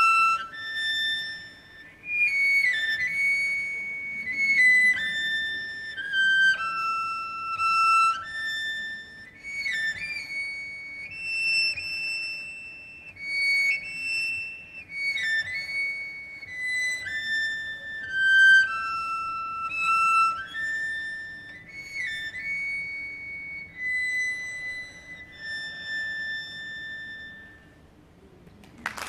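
Solo cello bowed in a slow, high-pitched melody of held notes, many of them preceded by quick grace-note ornaments, over a faint steady drone.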